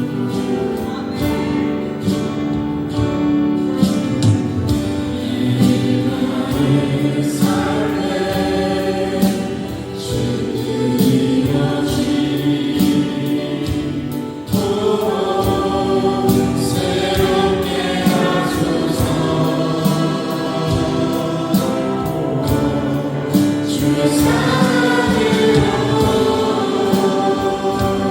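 Choral gospel music: a choir singing over an instrumental backing with a steady beat.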